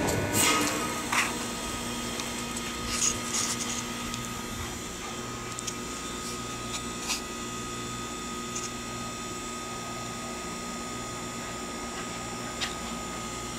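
A steady mechanical hum with a faint high whine and a low pulsing drone, with a few short clicks and rustles in the first few seconds and once near the end.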